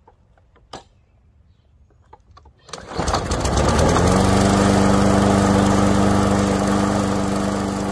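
Toro Recycler walk-behind lawn mower's single-cylinder engine starting. After a few light clicks it catches about three seconds in, speeds up over about a second and then runs steadily at high speed. This is its first run after being cleared of a hydrolock.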